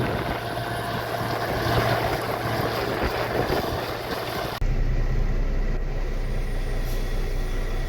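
Combine harvester running while picking corn: a steady, dense machine noise with some wind on the microphone. About four and a half seconds in it cuts abruptly to a lower, steadier engine hum.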